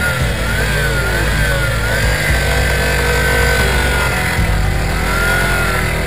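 Motorcycle engine running while riding, its pitch rising and falling with the throttle, over a steady low rumble.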